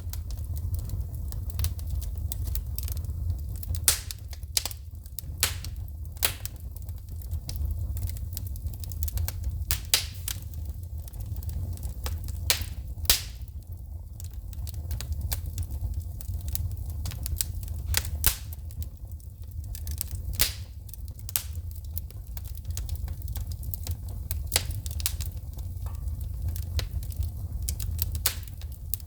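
Wood fire in a fireplace crackling, with frequent irregular sharp pops as sparks shoot from the burning logs, over a low steady rumble of the flames. The loudest pops come about four seconds in and near the middle.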